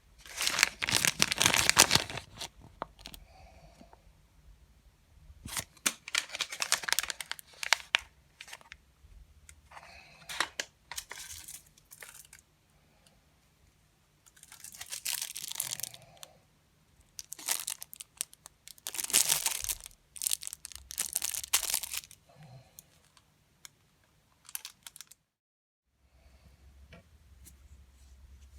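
Packaging being torn open and crinkled in about half a dozen bursts of a second or two each, with short handling noises between them.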